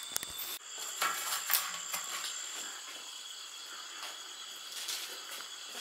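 Steady high-pitched trill of night insects, with scattered light clicks and knocks.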